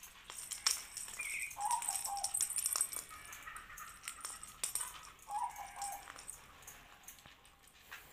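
A kitten playing with a wand toy's plastic ball: scattered light clicks and rattling as it bats and bites the ball on the tiles. A bird calls briefly in the background twice, once near the start and again about halfway through.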